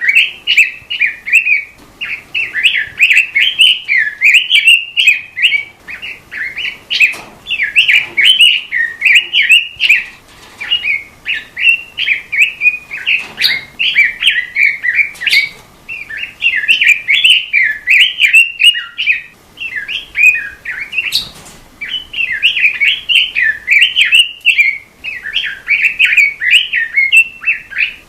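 Robin singing a fast, continuous warbling song of quick chattering phrases, with only brief pauses.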